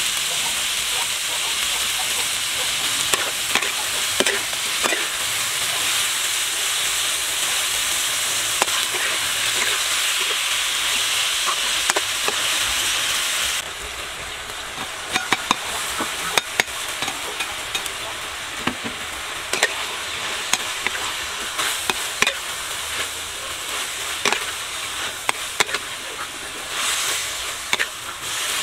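Sliced beef frying in a metal wok, with a loud, steady sizzle as it is stirred. About halfway through the sizzle suddenly drops quieter, and the spatula's sharp clicks and scrapes against the wok stand out. A short burst of louder sizzling comes near the end.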